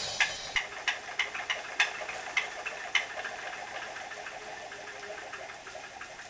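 Abu Garcia 6500 baitcasting reel being cranked to wind new line onto the spool: the reel's mechanism gives a steady mechanical ticking of about three ticks a second over a faint whir, clearest in the first few seconds and then fainter.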